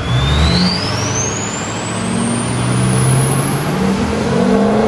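Built 6.0 Powerstroke V8 turbo diesel with a 10-blade KC turbo accelerating hard. The turbo whistle climbs steadily to a very high pitch over the engine's slowly rising note and exhaust roar, the jet-like turbo sound.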